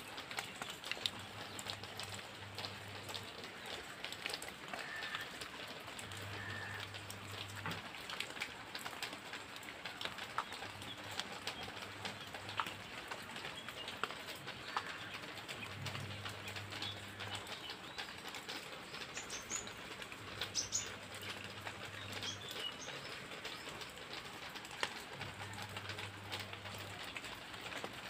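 Light rain pattering on foliage with water drops ticking, a dove cooing low about every five seconds, and a few brief high bird chirps.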